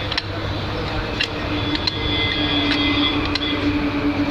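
Hydraulic compression machine running as it presses a joint onto a stranded overhead-line conductor: a steady motor-and-pump hum whose tone grows stronger about halfway through, with a few light clicks.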